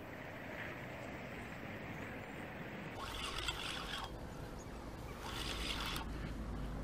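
A spinning reel being cranked in two short spells, about three and five seconds in, as a hooked carp is played on a bent rod, with a low wind rumble on the microphone.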